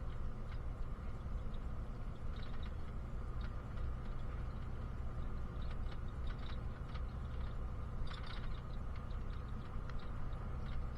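Bus engine and road noise heard from inside the passenger cabin: a steady low rumble, with scattered small rattles and clicks from the bus interior.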